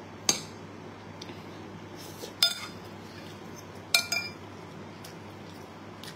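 Metal spoon and fork clinking against a ceramic bowl while scooping rice: a sharp clink just after the start, another about two and a half seconds in, and two close together about four seconds in, each with a brief ringing tone.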